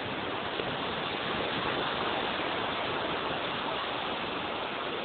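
Steady rushing noise of surf and wind on a beach, swelling slightly about two seconds in.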